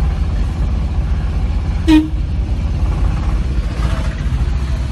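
A vehicle horn gives one short toot about two seconds in, over a steady low rumble of road traffic.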